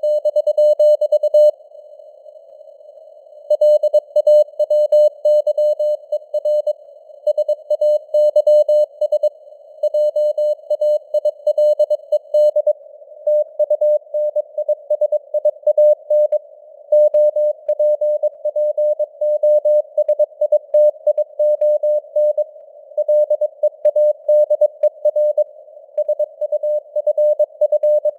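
Morse code (CW) at 22 words per minute: a single mid-pitched beep keyed rapidly on and off in dots and dashes over a narrow band of simulated radio hiss, with the signal strength fading slightly up and down. The sending pauses for about two seconds near the start, then runs on.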